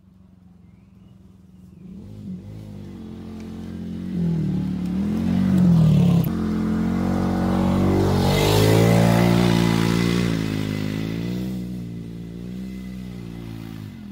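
2007 Polaris Ranger 6x6 side-by-side's engine revving up and down as it drives over rough ground toward and close past, loudest as it goes by about eight seconds in, then fading as it moves away.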